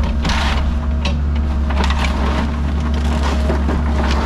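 Cat 306 mini excavator's diesel engine running steadily, with repeated crunching and cracking as the bucket breaks through wood and debris.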